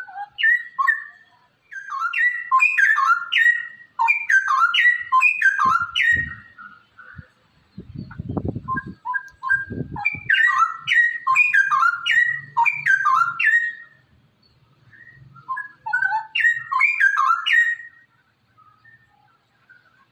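Straw-headed bulbul (cucak rowo) singing: three loud bouts of quick, bubbling whistled notes that jump up and down in pitch, with short pauses between them. A brief low rumble comes midway, about eight seconds in.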